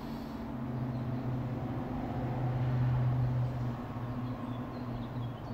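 A low, steady motor hum that grows louder about a second in and eases off after about three and a half seconds. Over it comes a slow breath out through pursed lips, with a few faint high chirps near the end.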